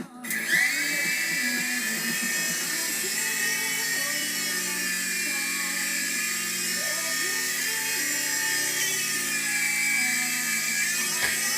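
Toy remote-control helicopter's small electric motor and rotor spinning up with a sudden rising whine, then running at a steady high whine, which dips briefly and rises again near the end.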